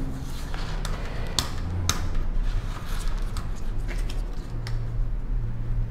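Kraft-paper pattern piece being handled and pressed flat on a metal worktable: soft paper rustling with a few sharp taps, over a low steady hum.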